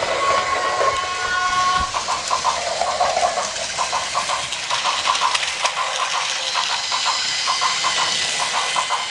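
Battery-powered Plarail toy train running on plastic track, with a steady, uneven clatter of small clicks and a brief steady electronic tone in the first two seconds.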